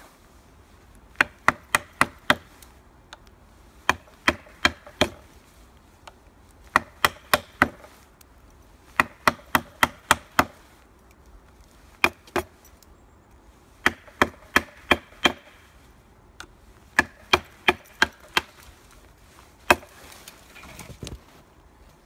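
A wooden baton striking the spine of a fixed-blade knife (JaktKit KNV2) to drive it through a maple branch: sharp wooden knocks in quick groups of two to six, a group every couple of seconds. Near the end the branch comes away.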